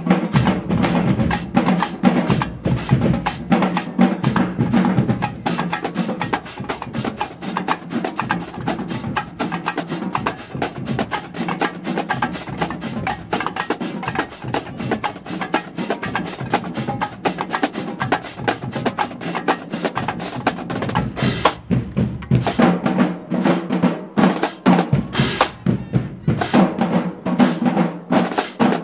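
Marching band drumline playing snare and bass drums on the march, a street cadence. Fast, dense snare strokes give way about two-thirds through to a sparser pattern of heavier hits.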